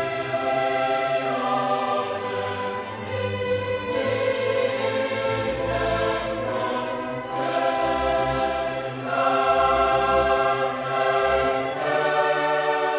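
Choral music with orchestra: a choir holding long, sustained chords that change every few seconds.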